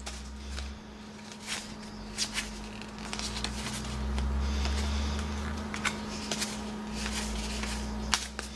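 Trading cards being flipped through by hand: scattered light clicks and slides of card stock, over a low steady hum.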